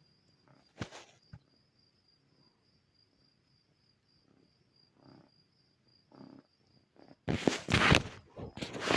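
Domestic cat vocalizing harshly: loud, rough bursts begin about seven seconds in, after a few faint short sounds.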